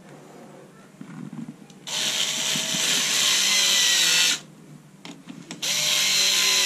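Handheld cordless screwdriver driving the clamp bolts of a rear-mount bicycle kickstand in two runs: a whirring motor whine starting about two seconds in and lasting a couple of seconds, then a second run near the end. The motor's pitch sinks slightly during each run.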